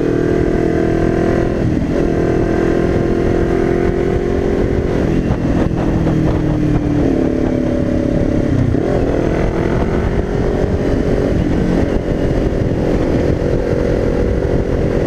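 Kawasaki Ninja 400's parallel-twin engine running under way at cruising speed, its pitch shifting a few times with throttle and gear changes and dipping, then rising again, about two-thirds through. Steady wind rush sits underneath.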